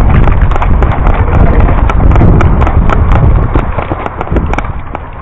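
Quick, fairly regular footfalls and gear knocking while someone runs, over a heavy rumble of wind and handling on a body-worn microphone. It fades near the end.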